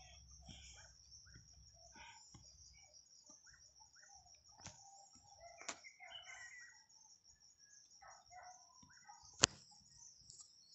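Faint outdoor field ambience: a steady high insect trill with scattered bird chirps, and a few clicks, the sharpest about nine and a half seconds in.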